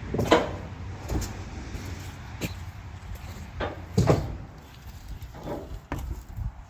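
A series of irregular knocks and thumps, about seven in all, the loudest a little after the start and about four seconds in.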